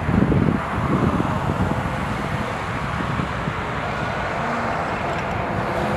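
Outdoor background noise: wind buffeting the microphone, gustiest in the first second, over a steady rush of road traffic.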